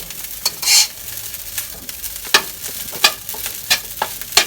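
Rice for salted-fish fried rice sizzling in a hot pan while a spatula stirs and scrapes it, with sharp scraping strokes about twice a second over a steady hiss.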